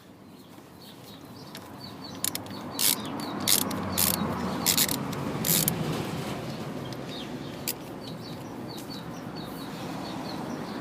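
Small birds chirping over a broad rumbling noise that swells about two seconds in and then holds. Several sharp clicks come between about two and six seconds in.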